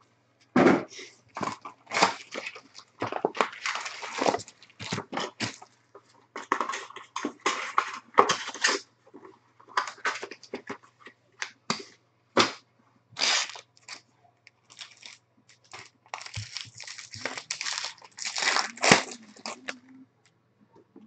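Foil wrappers of Bowman Chrome baseball card packs crinkling and tearing as the packs are handled and ripped open, in a rapid string of short crackling rustles.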